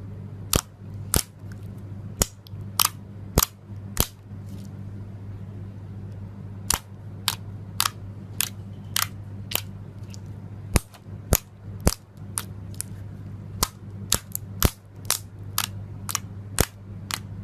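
Slime being squeezed and pressed, letting off sharp popping clicks as trapped air bursts, about two a second with a short pause before the middle. A steady low hum runs underneath.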